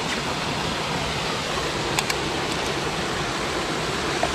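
Waterfall in a gorge rushing steadily, with two small clicks about two seconds in.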